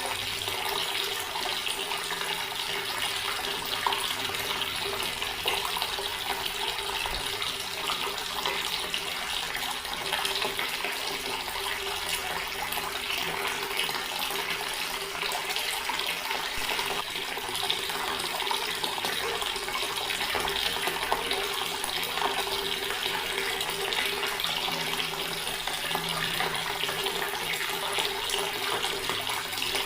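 Water flowing steadily from a tap into a stone basin, an unbroken running stream.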